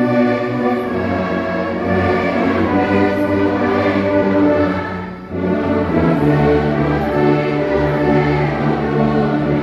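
A large brass-heavy church orchestra, trombones and low brass among it, playing a slow hymn in long held chords. A brief break between phrases comes about five seconds in.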